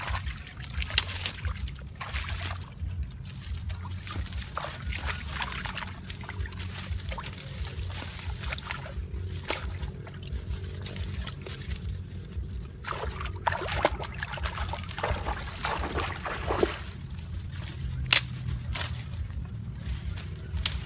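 Water trickling and sloshing, with scattered short splashes or knocks, two of them sharper than the rest, about a second in and near the end. A steady low rumble runs underneath.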